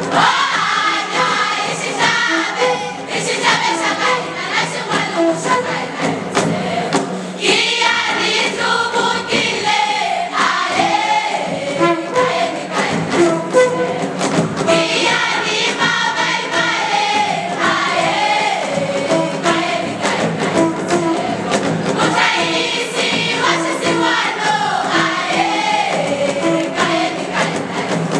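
A school choir singing a traditional African song in several-part harmony, with drums beating along throughout.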